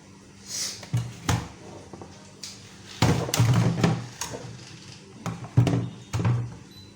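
Irregular knocks and bangs of things being handled in a kitchen, with a busier stretch of clatter about three seconds in.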